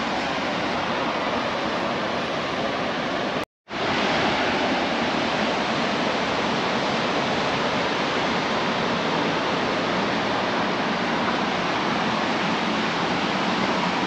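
Steady rushing of ocean surf breaking on the beach, mixed with wind. It drops out for a split second about three and a half seconds in, then goes on evenly.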